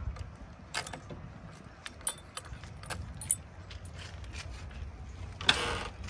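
A key jingling on its ring and clicking in the cab door lock of a JCB 3DX backhoe loader as the door is unlocked: a few light metallic clicks, then a louder click about five and a half seconds in.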